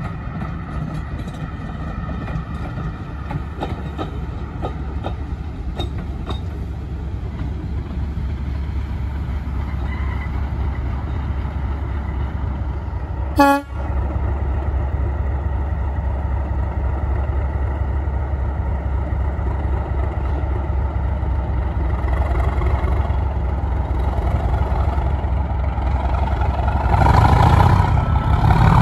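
Class 37 diesel locomotive 37109 and its Mk3 coaches passing on the rails, with a steady low engine rumble that grows louder near the end. A very short toot comes about halfway through.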